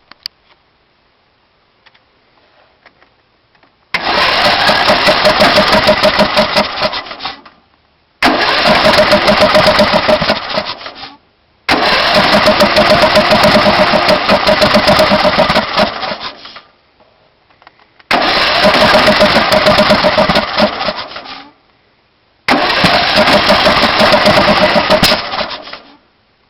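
Briggs & Stratton Intek 18.5 HP riding-mower engine cranked by its electric starter five times, each try lasting three to five seconds with a steady pulsing beat, then dying away without the engine running on. This is a no-start, in an engine the owner says will only run briefly on starting fluid and otherwise backfires through the carburettor.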